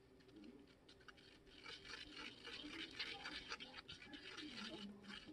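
A toothpick stirring two-part epoxy on a piece of cardboard: faint, rapid scratching and rubbing strokes that start about a second and a half in.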